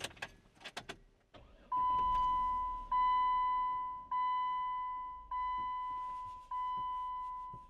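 Car's dashboard warning chime dinging five times, about once every 1.2 seconds, each ding a steady tone that fades out, after a few small clicks.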